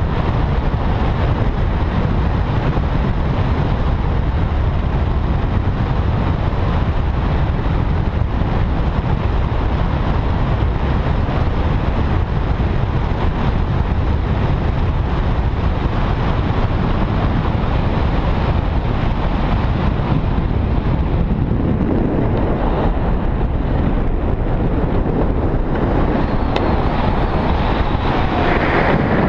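Wind rushing over the camera microphone of a tandem paraglider in flight: a loud, steady rumble and hiss with no other sound standing out.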